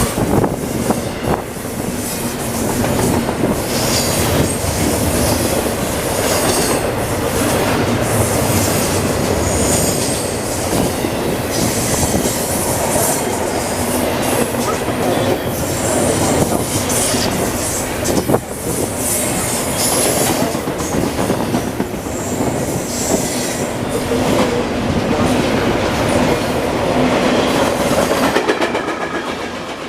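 Container flatcars of a CSX intermodal freight train rolling past close by: a steady rumble with high-pitched wheel squeal coming and going, and sharp clicks over the rail joints. The noise eases near the end.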